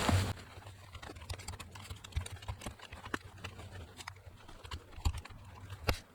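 Small titanium camp shovel working in root-filled soil: scattered light scraping and clicking, with a few sharper knocks about two, five and six seconds in.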